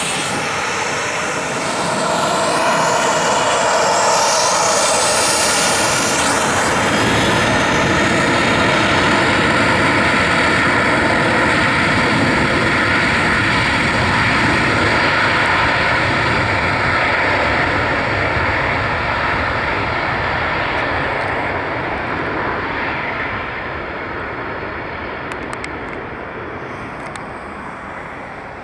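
Boeing 737-700 Business Jet's CFM56-7B turbofans at takeoff power, a steady jet roar with shifting high whine as the aircraft passes. The roar swells about two seconds in, holds, then fades away steadily over the last several seconds as the jet climbs out.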